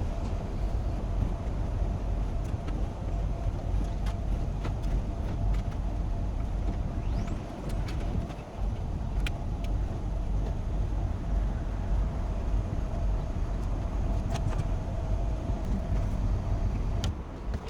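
Packaged air-conditioning unit running, a steady deep rumble with a constant hum, with scattered sharp clicks and taps of work on the unit, more of them near the end.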